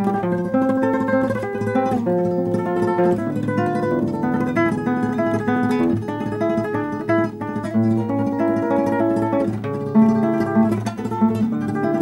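Background music: an acoustic guitar playing a steady run of quick plucked notes.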